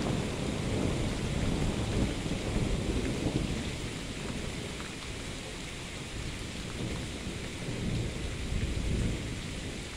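Thunder rumbling over steady rain. The rumble swells over the first few seconds, eases off, and builds again near the end.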